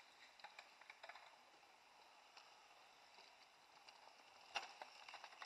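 Faint sounds of mountain bikes on a forest dirt trail: scattered light clicks and rattles, with one sharper click about four and a half seconds in.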